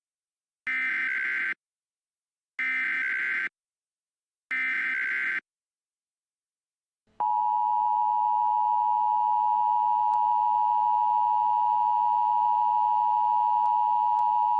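Emergency Alert System tones. Three short bursts of SAME digital header data, each about a second long, are followed after a pause by the steady two-tone EAS attention signal, which announces an emergency alert.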